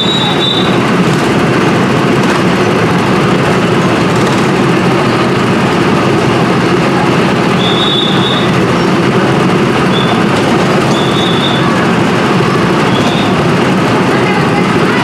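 Roller coaster train running on its track: a steady, loud rumble with a few short, high squeals scattered through it.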